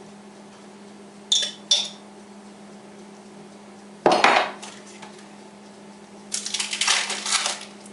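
Dishes and cutlery being handled while a sandwich is made: two light ringing clinks, a louder clatter about four seconds in, then a longer stretch of clattering and rustling near the end, over a steady low hum.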